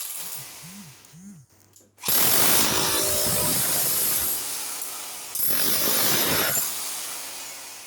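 A tool working in two long, noisy bursts, the first about three seconds and the second about one, each fading off at the end.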